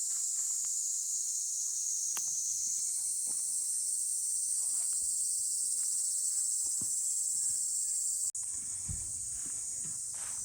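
Steady high-pitched insect chorus drones throughout, with a few faint clicks and handling sounds beneath it; the sound shifts abruptly about eight seconds in, followed by a couple of low thuds.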